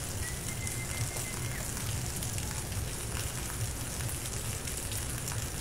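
Rain falling on a street and rooftops: a steady hiss with a low rumble beneath it. A thin steady high tone sounds for about a second and a half near the start.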